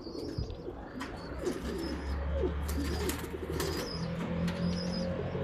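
Pigeons cooing in low, wavering calls, with short high chirps of small birds between them. A low steady hum comes in about two seconds in.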